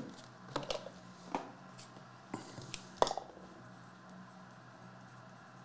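Trading cards being handled: a handful of soft clicks and rustles in the first three seconds, the sharpest about three seconds in, over a faint steady hum.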